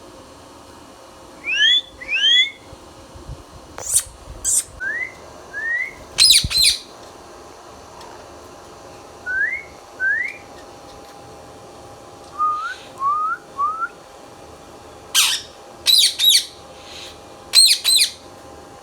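Indian ringneck parrot giving short rising whistles, mostly in twos, with sharp screeches in between. The screeches come thickest and loudest in the last few seconds.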